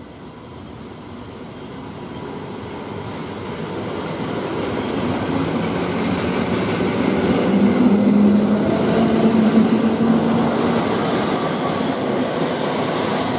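EN57 electric multiple unit running into the station and past close by. Its running noise grows steadily to its loudest about eight seconds in, with a low steady hum through the middle part.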